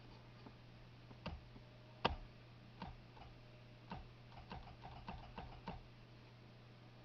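Faint clicking of a car's steering-column headlight and turn-signal switch being worked through its positions: about a dozen short, irregular clicks, closer together near the end.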